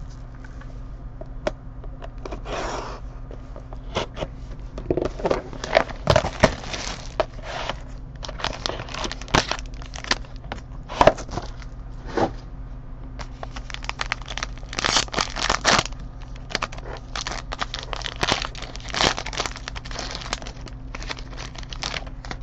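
Plastic shrink wrap and a foil card-pack wrapper being torn and crinkled open by hand, in irregular crackling rustles, as a box of hockey cards is unwrapped and its pack opened.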